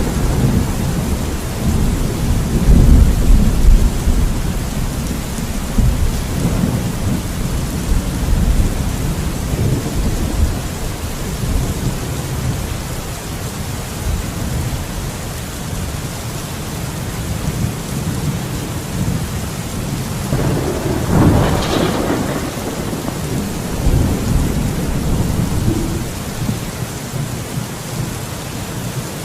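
Thunderstorm: steady heavy rain with rolling thunder, the rumble loudest in the first few seconds, a sharper crack of thunder about two-thirds of the way through, and the rumble dying down near the end.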